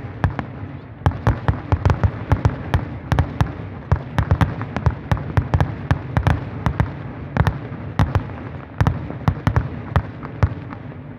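Aerial fireworks shells bursting: a rapid, uneven run of sharp bangs and cracks, several a second.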